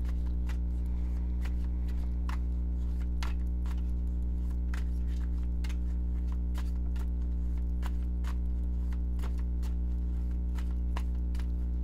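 Steady low hum, with light clicks and taps scattered irregularly over it.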